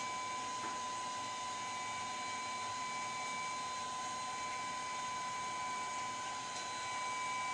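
Steady hiss with a high, steady whine from the powered-up rework equipment, with no clear events on top.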